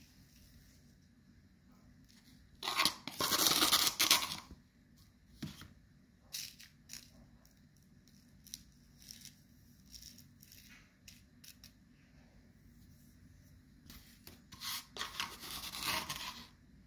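Metal spoon scraping and pushing rangoli sand across a sheet of paper: two loud scratchy passes, about three seconds in and near the end, with light ticks and short scrapes between.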